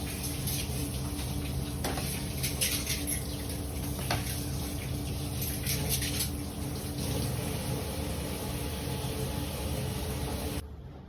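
Water running steadily from a kitchen tap into a sink, with small splashes, then shut off abruptly near the end.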